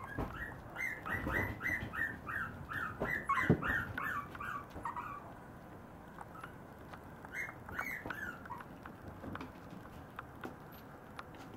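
Maltese puppy whining in a rapid string of short, high, falling cries for about four seconds, then two more cries a few seconds later.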